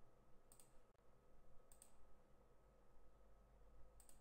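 Three quiet computer mouse clicks, each a quick press and release, the first two about a second apart and the third after a longer pause, over a faint steady hum.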